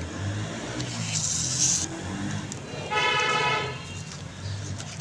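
Road traffic in the background, with a single short vehicle horn toot about three seconds in, the loudest sound, after a brief hiss.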